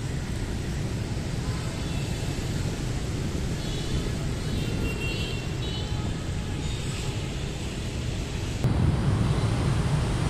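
Steady low rumble of outdoor city street noise, with a few faint short high tones about halfway through. A little over eight seconds in, it turns suddenly louder and duller.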